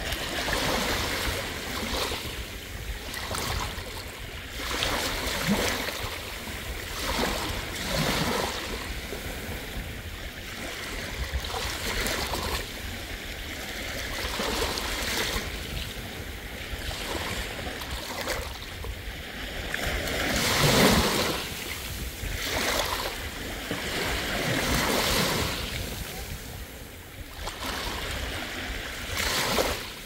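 Sea waves washing onto a beach in repeated surges every few seconds, with a louder wave about two-thirds of the way through.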